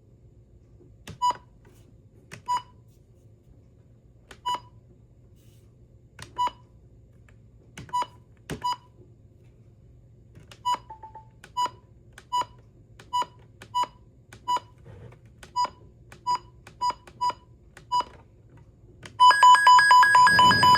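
Maxx Digital weather radio giving short single button beeps, about eighteen at uneven intervals as its menu buttons are pressed. Near the end, the radio's alert test sets off a loud, rapidly pulsing alarm tone at the same pitch.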